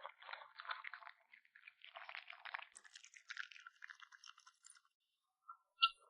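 A kitten crunching and chewing raw meat, a dense run of small wet crunches that stops about five seconds in. A single short, sharp tick follows near the end.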